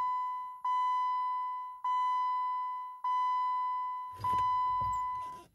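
Jeep Wrangler JK instrument-cluster warning chime with the ignition switched on and the engine not running: a clear electronic ding repeated five times, about 1.2 seconds apart, each fading before the next.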